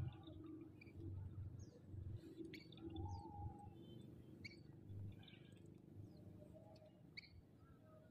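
Faint outdoor quiet with small birds giving scattered short, high chirps every second or so, over a low steady background hum.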